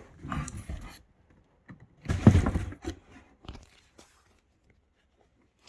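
Rustling and knocking from items and packaging being handled and pulled out of a box: a few short bursts, the loudest about two seconds in, then quiet.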